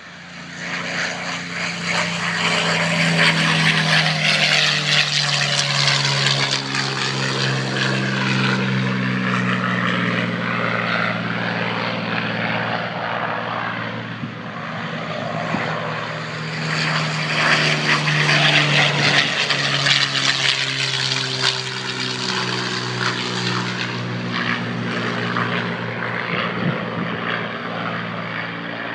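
P-51 Mustang warbirds' V-12 piston engines at takeoff power: a loud, deep propeller drone that swells twice as the aircraft depart, its pitch sliding slightly down as each one goes by.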